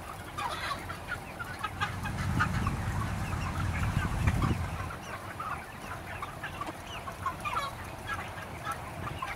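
A large flock of broiler chickens making many short, overlapping chirps and clucks, with a low rumble swelling for a couple of seconds in the middle.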